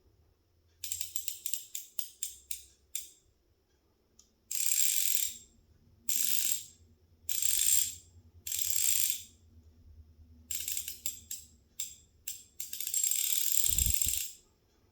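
Hope Pro 4 Trial hub's freehub ratcheting as it is spun: runs of separate clicks that slow down, and several bursts of fast, buzzing clicks lasting about a second each. A short low thump comes near the end.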